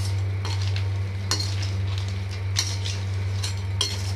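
Steel ladle scraping and knocking against a stainless-steel kadai as small crabs in a wet masala gravy are stirred, over a sizzle of the gravy cooking. A steady low hum sits underneath.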